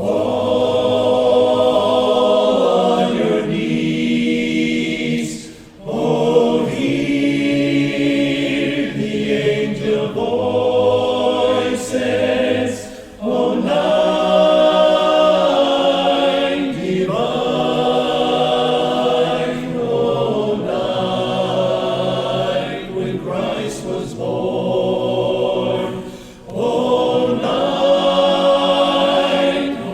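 Men's barbershop voices singing a cappella in close harmony, with long held chords broken by short breaks between phrases.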